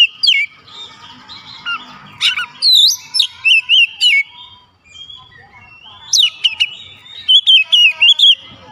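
Oriental magpie-robin singing loud phrases of fast, varied whistled notes that swoop up and down, in bursts separated by pauses, the longest gap near the middle.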